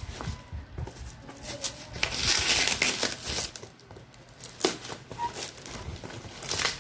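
Parcel packaging crinkling and rustling as it is pulled open by hand. Loudest for about a second a couple of seconds in, with sharp crackles later on.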